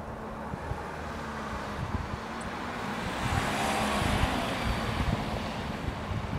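A passing vehicle's noise swells to a peak about four seconds in and then fades, with wind buffeting the microphone.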